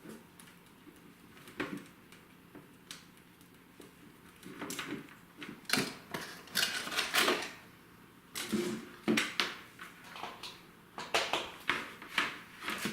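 Irregular handling noises: clicks, knocks and rustling as objects are moved about on a work surface, sparse at first and busier from about four seconds in. The engraver is not running.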